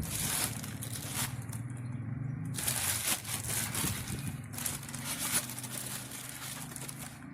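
Irregular crinkling and crackling, like something being handled, over a low steady hum.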